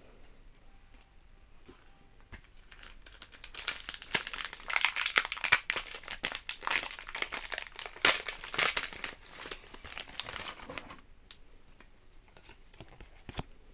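A foil Pokémon booster pack wrapper being torn open and crinkled: a dense crackle of crinkling that starts about three seconds in and lasts around seven seconds, followed by a few light clicks.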